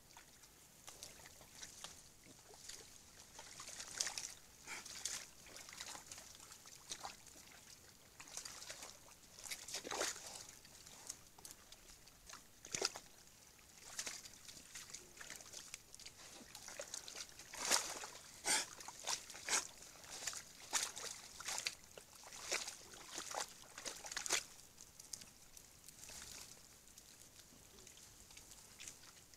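A group of wild boar with their striped piglets moving about and splashing in a muddy wallow: an irregular run of short sloshing and scuffling noises, busiest in the second half.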